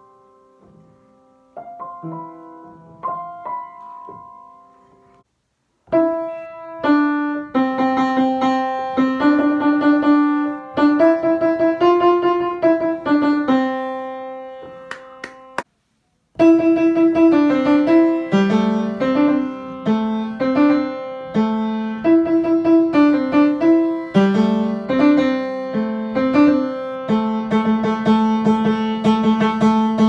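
Upright piano played with both hands: a soft, sparse melody at first, then fuller, louder chords under the tune. The playing drops out twice for about half a second, about five seconds in and again halfway through, then carries on.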